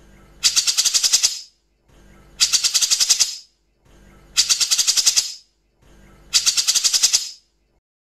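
Cucak jenggot (grey-cheeked bulbul) giving harsh, rapid-fire rattling call bursts: four bursts of about a second each, about two seconds apart with pauses between, each a fast run of about ten notes a second.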